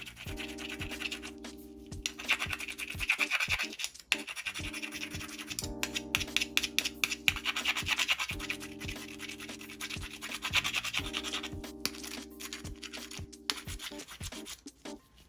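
Mussel shells being scrubbed and scraped clean, a dense scratchy rasp in several stretches of a few seconds each, over background music.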